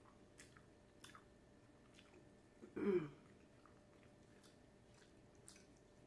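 Quiet sounds of a person eating noodles: faint scattered clicks of chewing and of the fork in the food. About three seconds in there is one short hummed vocal sound that falls in pitch.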